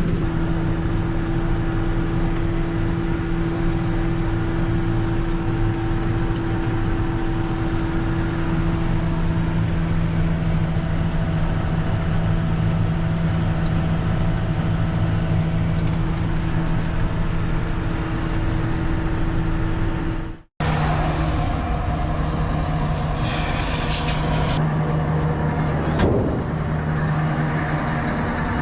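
Tractor engine running steadily under load, heard from inside the cab as a constant hum. About two-thirds of the way through it cuts off suddenly and another engine sound takes over, with a hiss lasting a couple of seconds and a single sharp knock near the end.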